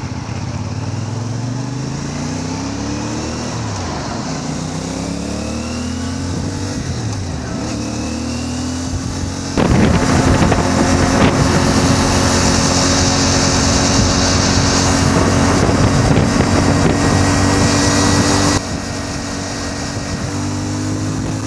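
Motorcycle engine of a CF Moto 450 MT accelerating in repeated rising sweeps as it runs up through the gears. About halfway through, a much louder rushing noise comes in suddenly over a steady engine note and cuts off about nine seconds later.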